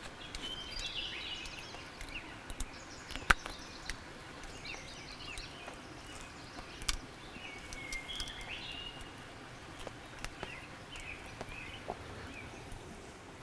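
Small birds chirping in short, high phrases every few seconds, with a few sharp clicks from hands stripping grouse feathers for fletching; the loudest click comes about three seconds in.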